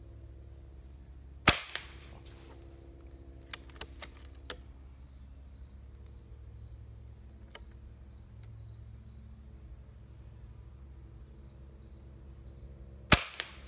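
Two shots from a .25-calibre Hatsan Nova QE PCP air rifle with its built-in moderated shroud: a sharp crack about a second and a half in and another near the end, each followed a moment later by a fainter second report. A few light clicks fall in between, over steady high insect chirring.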